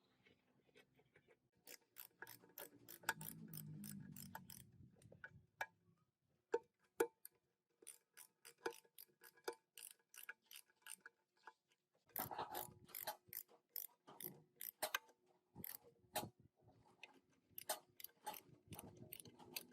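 Irregular metallic clicks and clinks, some ringing briefly, from hand work on the old four-speed gearbox's metal parts. A duller scraping sound runs for about two seconds a few seconds in.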